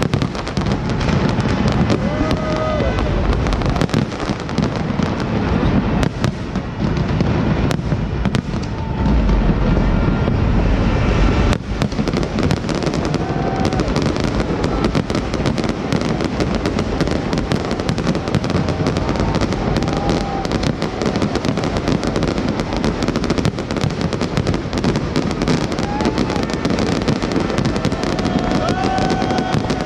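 Fireworks display: a dense, continuous crackle of bursting aerial shells over deep booms, the booms heaviest about a third of the way in.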